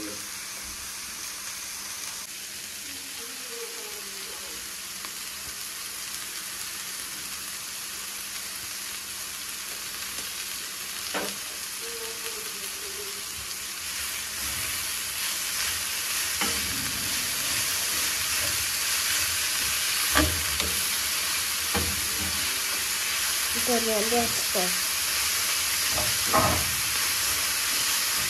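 Shredded cabbage and carrot sizzling in a frying pan, the hiss growing louder about halfway through as a wooden spatula stirs and tosses them, with a few knocks of the spatula against the pan.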